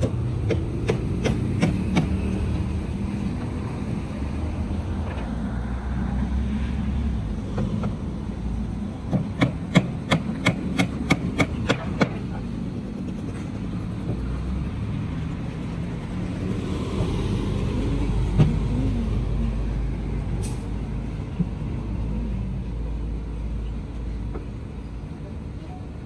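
Hammer blows on timber formwork: a few strikes within the first two seconds, then a quick run of about ten sharp blows, roughly three a second, a third of the way in. A steady low rumble of road traffic runs underneath.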